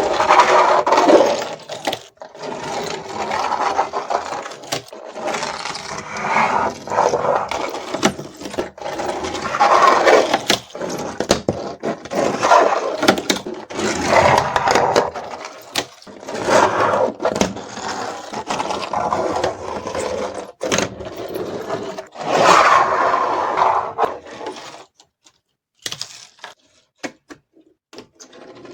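Repeated creaking scrapes, each lasting a second or two with brief pauses between them, ending about 25 seconds in.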